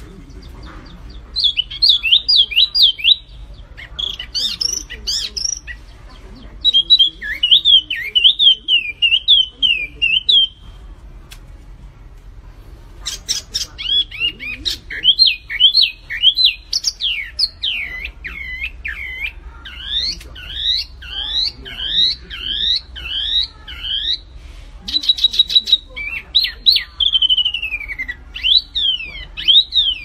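A small caged songbird singing phrase after phrase of quick, clear whistled notes that slide up and down. The song breaks off for a couple of seconds about a third of the way through, then runs on with only brief gaps.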